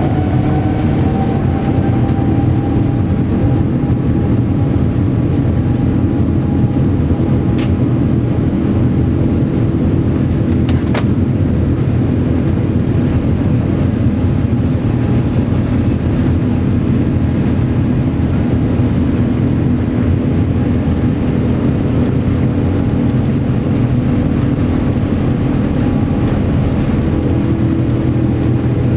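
Jet airliner's turbofan engines at takeoff thrust, heard inside the cabin: a whine that rises in pitch in the first second as the engines finish spooling up, then holds steady over loud, even engine and rolling noise. Two faint clicks sound in the first half.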